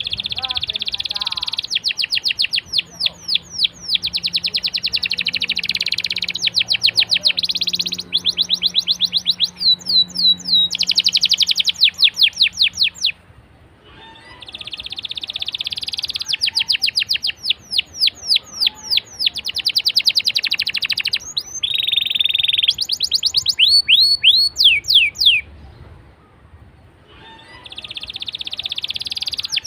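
Domestic canary singing a long rolling song: phrases of fast, evenly repeated high trilled notes and sweeping chirps, each phrase running for many seconds, broken by short pauses about 13 seconds and 26 seconds in.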